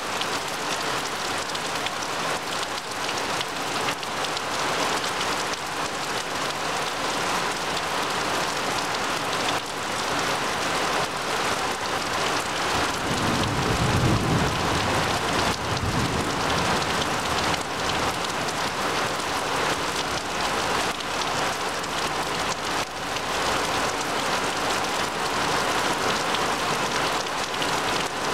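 Steady rain falling on trees and grass, with a low rumble of thunder swelling about halfway through and fading away.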